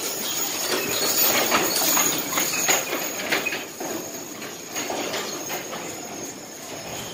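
Draft horse team pulling a wagon past close by: harness and wagon hardware rattling and jingling, wheels rolling, and hoofbeats muffled by sand. Loudest in the first three seconds, then fading as the team moves away.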